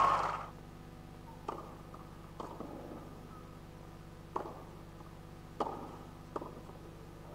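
Tennis ball struck with rackets during a serve and rally on a clay court: six short sharp pops, the first at the serve about a second and a half in, then three more spaced about a second apart, the crowd silent between them. Applause dies away at the start.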